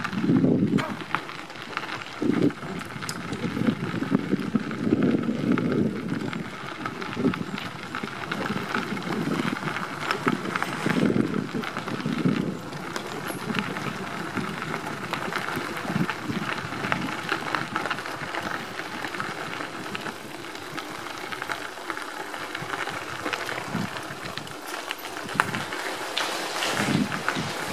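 Bicycle tyres rolling over a crushed-gravel trail, a steady crunching hiss, with irregular low rumbles that thin out after about twenty seconds.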